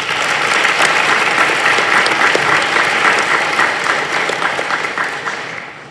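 Audience applauding: a burst of clapping that starts suddenly, holds steady, then fades out near the end.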